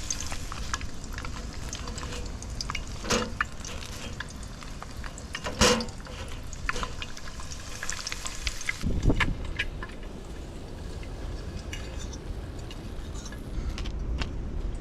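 Food sizzling in a frying pan, with a few knocks of a utensil against the pan, the loudest about six seconds in. The sizzle stops suddenly about nine seconds in, leaving a quieter background.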